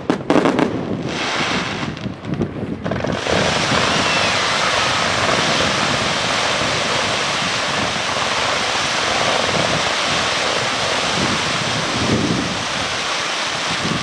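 Fireworks display: a few sharp bangs, then from about three seconds in a dense, steady crackle and hiss of many fireworks going off together, as in a large star mine.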